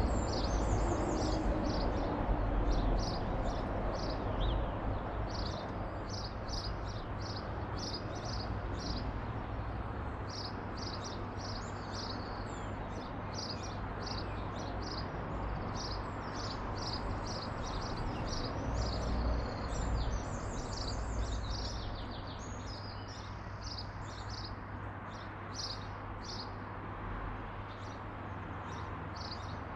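Garden birds chirping, with many short, high notes repeated throughout, over a steady low background rumble.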